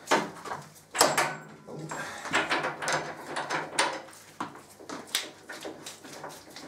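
Irregular metallic clicks and clacks of a long socket wrench working the 32 mm rear axle nut of a motorcycle as it is unscrewed, the sharpest at the start and about a second in.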